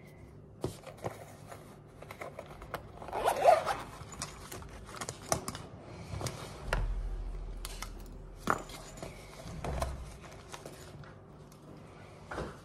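A zip on a fabric case being pulled open, with rustling of the bag and small clicks of plastic parts being handled; the densest rustling comes about three seconds in.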